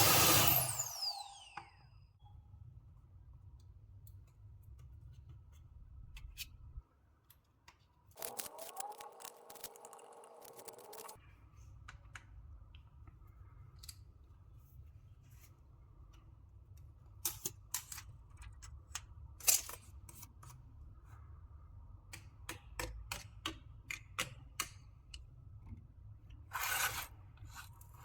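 A small electric blower is switched off, its whine falling as it spins down. Then come scattered light clicks and taps of small parts being handled, with a couple of short rustling stretches.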